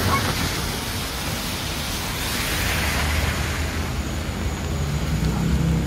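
Steady hiss of a wet city street in the rain, tyres on wet pavement and rain, swelling about two to three seconds in, with a low engine hum coming up near the end.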